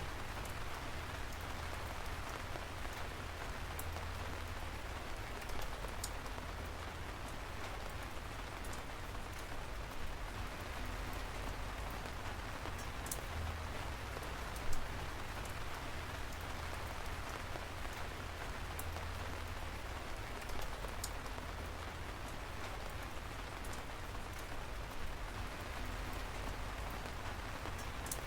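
Steady rainfall, an even hiss of falling rain, with scattered sharper ticks of individual drops landing close by, one louder drop about halfway through.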